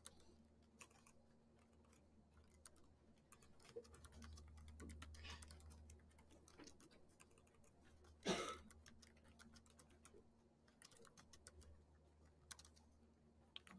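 Faint typing on a computer keyboard: scattered soft key clicks. A brief louder sound about eight seconds in.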